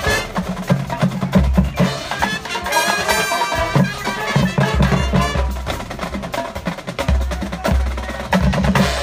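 Drum corps percussion section playing a feature: deep bass drum hits and snare strokes under ringing mallet-keyboard notes from the marimbas and bells, with no brass.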